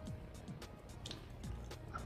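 Quiet background music with held tones and low notes, with a few faint small clicks.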